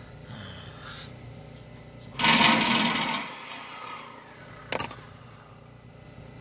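A reciprocating saw cutting into the steel frame of a mobile home, a loud burst of about a second starting about two seconds in and trailing off. A sharp click follows a couple of seconds later.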